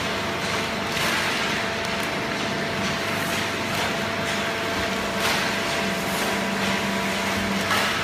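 Horizontal hydraulic waste-paper baler and its chain conveyor running: a steady mechanical hum with faint steady tones, broken by a few brief clatters.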